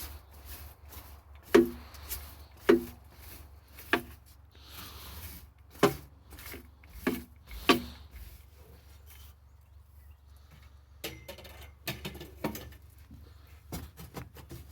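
Metal knocks and clanks from work on a skid steer's hydraulic tank lid: six sharp strikes with a short ring in the first eight seconds, then a cluster of lighter clicks near the end, over a steady low hum.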